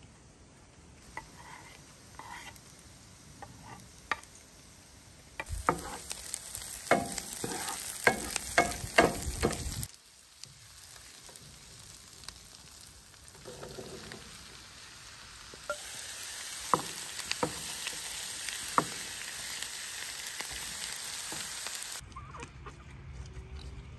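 Chopped onion frying in oil in a pan, sizzling as it is stirred with a wooden spoon that knocks against the pan. The sizzle is loud, with a quick run of knocks, from about six to ten seconds in, drops away, then returns steadily about sixteen seconds in and cuts off near the end.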